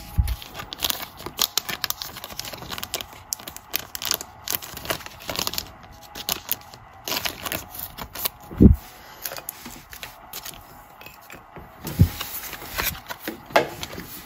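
Stiff, glossy Panini Mosaic trading cards being shuffled through by hand, sliding and flicking against one another in quick irregular clicks and rustles, with a couple of dull knocks.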